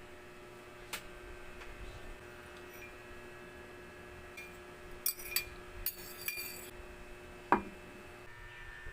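A few light clinks and clicks over a steady faint hum, with a sharper knock near the end.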